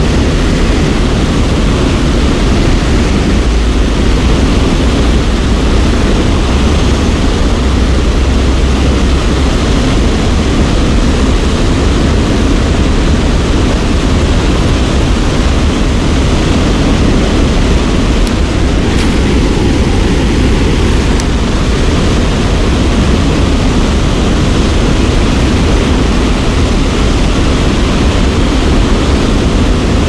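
Steady, loud rushing of a spillway waterfall, with wind rumbling on the microphone.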